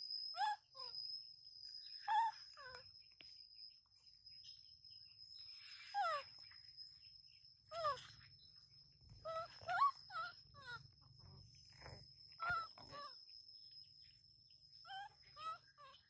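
Baby macaque giving short whimpering cries that fall in pitch, coming in clusters every second or two. A steady high thin tone runs underneath.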